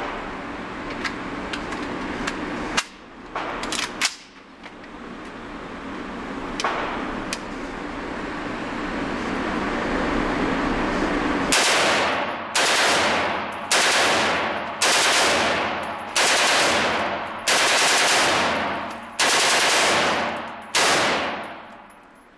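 Heckler & Koch G36KE 5.56 mm rifle firing on full auto in about eight short bursts in the second half, echoing in an indoor range. A few isolated sharp cracks come earlier.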